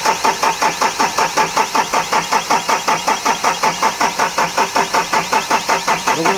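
Starter cranking the Mahindra Bolero Pickup's diesel engine in an even rhythm of about six compression pulses a second, without the engine catching. It is a no-start even though fuel has been bled through to the injection system.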